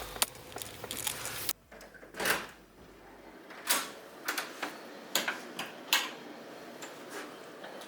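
A dozen or so light clicks and knocks at irregular intervals, some sharp and one or two fuller thuds, over a quiet background.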